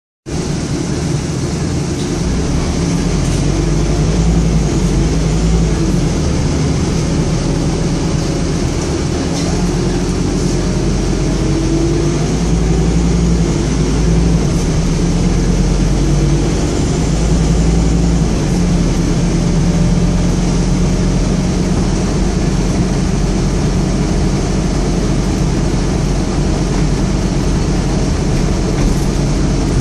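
Scania N230UD double-decker bus's five-cylinder diesel engine running steadily, heard from inside on the upper deck as a low drone. The engine note shifts a few times, with road noise and faint interior rattles throughout.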